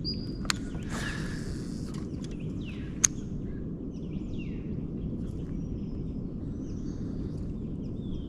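Small birds chirping repeatedly in short falling calls over a steady low rumble. There is a sharp click about three seconds in, a smaller one just before it, and a brief hiss about a second in.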